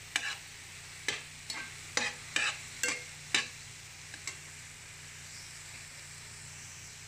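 Slotted metal spatula scraping and stirring chopped tomato, onion and garlic around a frying pan, about eight quick strokes in the first three and a half seconds. Underneath, the sauté sizzles steadily in oil, and the sizzle goes on alone after the stirring stops.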